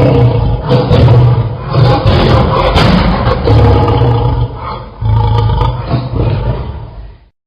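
African lion roaring, a run of deep, repeated grunting roars about once a second that fade out near the end.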